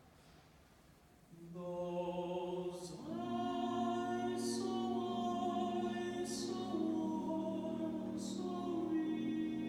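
Unaccompanied barbershop harmony singing: sustained, close-harmony vocal chords with no instruments. Upper voices enter about a second and a half in, and a low bass voice fills out the chord about three seconds in, with a few crisp 's' sounds between held notes.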